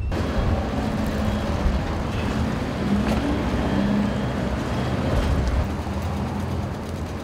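Street traffic: cars driving along a road, their engines humming under a steady rush of tyre and road noise.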